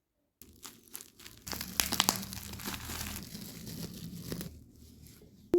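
Packaging being handled and unwrapped, an irregular crinkling and rustling with some tearing, then a single sharp click near the end.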